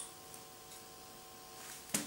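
Faint steady electrical hum, a few even tones, from the small guitar amplifier monitoring the pickups. A sharp click near the end.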